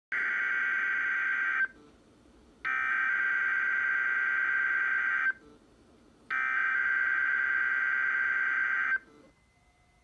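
NOAA Weather Radio SAME digital header for a Required Weekly Test, heard through a Sangean weather radio's speaker: three bursts of data tones about a second apart. The first is shorter, the next two last about two and a half seconds each.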